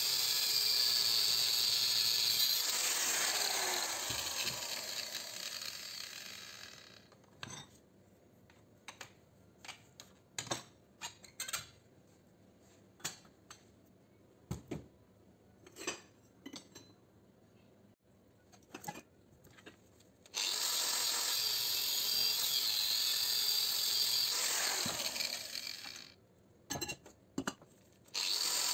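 Angle grinder grinding metal, then winding down with a falling whine a few seconds in. Sharp metallic clanks and knocks follow as steel-and-copper motor stators are handled. The grinder starts again suddenly about two-thirds of the way through, winds down, a few more clanks follow, and it starts once more near the end.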